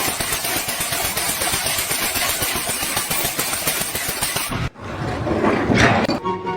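Loud, dense machine noise like a running engine, which cuts off suddenly after about four and a half seconds. A short whoosh swells up after the cut, and music begins near the end.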